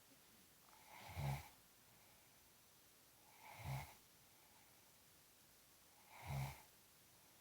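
Snoring, slow and regular: three snores about two and a half seconds apart, each a short low buzz with quiet between them.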